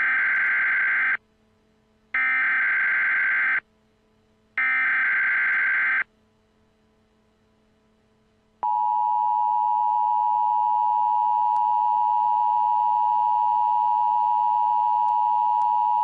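Emergency Alert System SAME header: three short, loud bursts of warbling digital data tones, each about a second and a half long, then one long steady attention tone starting about two and a half seconds after the last burst. This is the start of a broadcast alert, here a severe thunderstorm warning.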